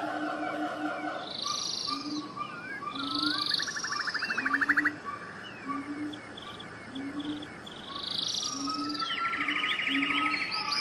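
A dense chorus of animal calls: chirps, whistles and fast pulsed trills from bird-like voices, over short low croaking notes that repeat about once a second.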